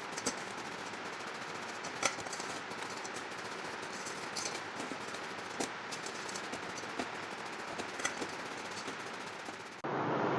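Scooter engine parts being handled during a petrol wash: light, irregular metal clicks and taps over a steady hiss.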